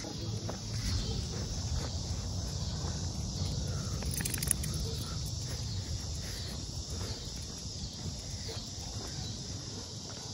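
Steady chirring of insects over a low rumble of wind on the phone's microphone, with one brief click about four seconds in.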